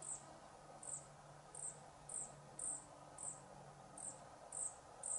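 Cricket-type insect chirping in the grass: short, high-pitched chirps repeated steadily about every half second.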